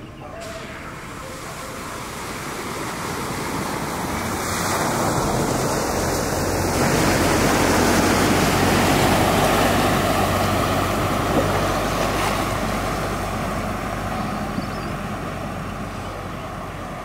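Floodwater rushing and sloshing as a vehicle drives through a flooded road, with a low engine hum that comes in about five seconds in. The rush swells to its loudest about halfway through, then eases.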